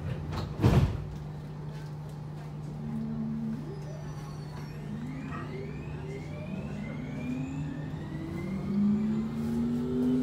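Electric metro train pulling away from a platform: a steady low hum, a loud thump about a second in, then from about three seconds in the traction motors' whine rising in several tones as the train gathers speed.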